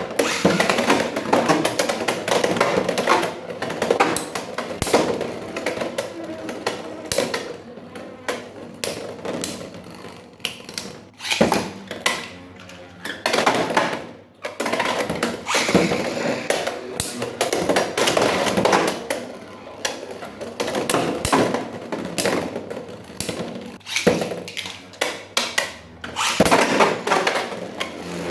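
Beyblade X plastic and metal spinning-top parts clattering and clicking against each other in quick, irregular taps and knocks.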